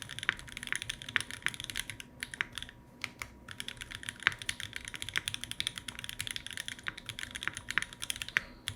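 Keycult No. 1 Rev 2 custom mechanical keyboard being typed on: a steady run of quick key clacks, with a brief pause about three seconds in.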